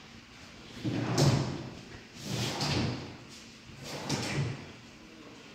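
Drawers of a PVC TV unit being slid open and shut on their runners, three times, each a short sliding rumble.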